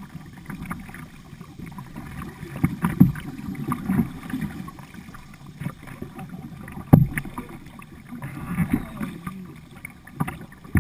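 Water splashing and sloshing around a kayak being paddled down a flood-swollen river, in uneven strokes. There is a sharp knock about seven seconds in.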